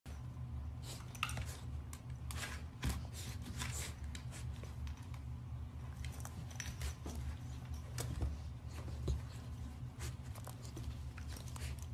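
Two fluffy puppies wrestling and play-biting on a hard floor: an irregular run of sharp clicks, taps and scuffles from claws and mouths, over a low steady hum.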